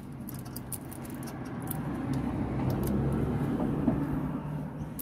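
A passing vehicle rumbling, swelling to its loudest about three seconds in and then fading, over a low steady hum. A few faint metallic clicks near the start come from hands working at the clutch return spring.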